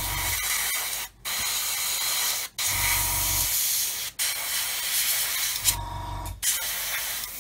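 Airbrush spraying green paint. The hiss of air and paint comes in bursts of about a second and a half, with brief breaks between them as the trigger is released.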